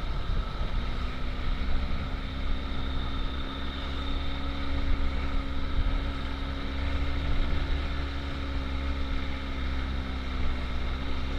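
Motor scooter engine running at a steady pitch while riding, with heavy wind noise on the microphone.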